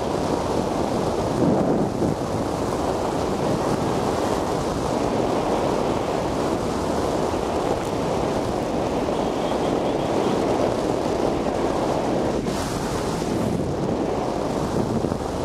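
Steady wind rushing over the microphone and road rumble from a vehicle driving along a dirt road, with a brief hissier stretch near the end.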